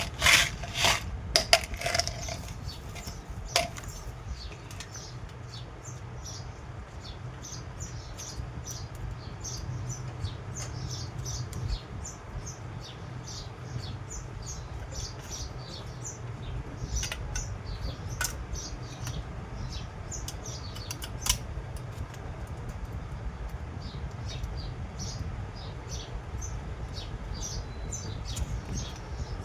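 A few sharp clicks and knocks in the first four seconds, like small parts being handled on a bench, over a steady low hum. Small birds chirp faintly and repeatedly in the background.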